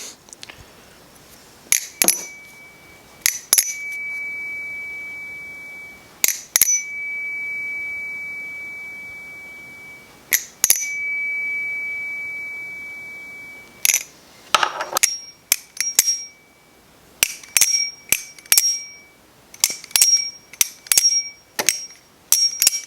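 Balisong (butterfly knife) handles clacking together, several strikes each followed by a clear, high, bell-like ring that lingers for a couple of seconds before fading. Later comes a quicker run of clacks, each with a shorter ring.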